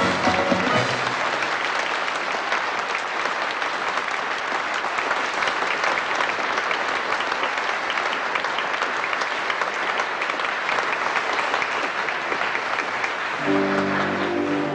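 Audience applauding steadily after a song, the last notes of the band dying away in the first second. Instrumental music starts up again near the end.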